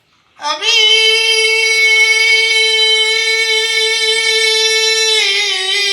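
A melodic instrument holds one steady, unwavering note for nearly five seconds. It then slips slightly lower and breaks into a wavering, ornamented line: an instrumental fill between the sung verses of an Arabic tarab song.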